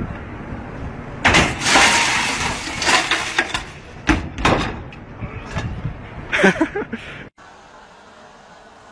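Glass side panel of an escalator shattering: a loud crash about a second in, followed by several sharp knocks and clatters. Near the end the sound drops suddenly to a low steady hiss.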